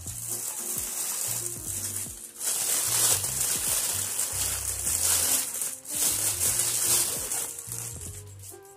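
Clear plastic packaging crinkling and rustling as it is handled and pulled off a part, with two short pauses. Background music with a low bass line plays underneath.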